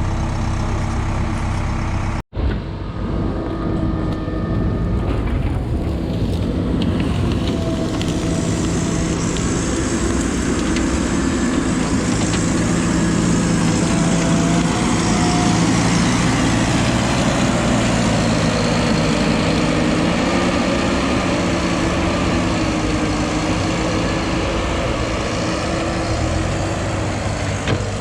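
Heavy diesel machinery engine running steadily under load. The sound cuts out for an instant about two seconds in, then thickens and gets a little louder from about eight seconds on.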